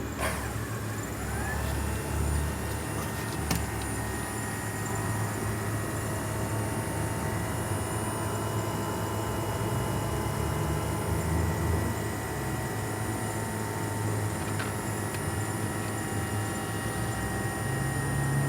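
2005 Toyota Prius running with its new catalytic converter fitted: a steady low rumble with a whine that rises in the first second or two and then holds. There is one sharp click a few seconds in.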